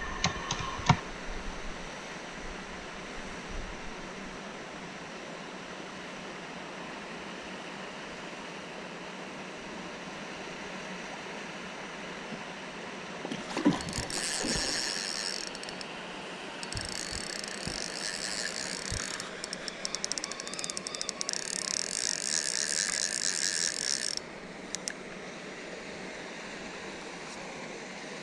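Spinning reel's drag ratcheting as a hooked carp pulls line: a brief spell about fourteen seconds in, then a longer, louder run of about seven seconds that cuts off suddenly. A thump comes just before the first spell.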